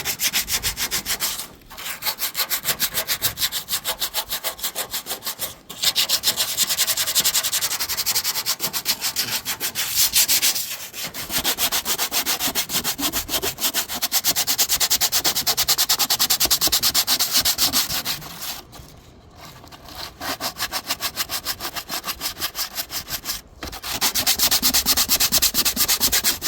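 Sanding rust off a refrigerator's metal evaporator cover: an abrasive rasping in quick, even back-and-forth strokes, stopping briefly several times.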